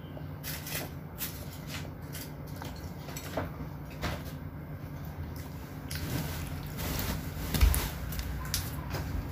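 Close-up eating sounds of spaghetti: wet chewing and slurping, with small clicks of a fork against a cardboard tray, over a steady low hum. A single low thump comes about three-quarters of the way through.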